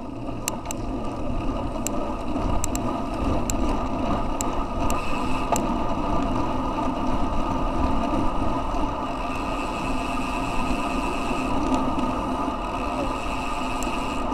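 Road bicycles in a bunch picking up speed: wind rushing over the handlebar camera's microphone and tyres rolling on asphalt, growing louder over the first couple of seconds as the pace rises. A few sharp clicks in the first four seconds.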